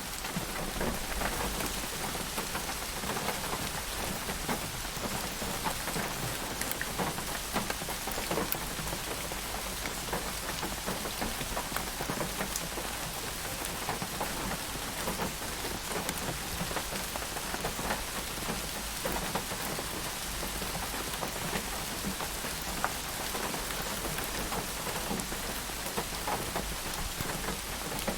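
Steady rain falling: an even hiss, with many separate drops ticking through it.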